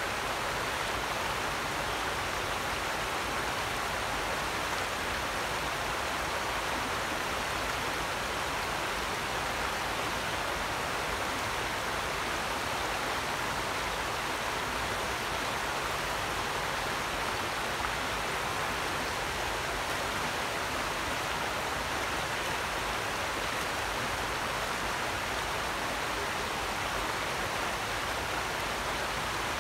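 Shallow rocky creek rushing steadily over stones.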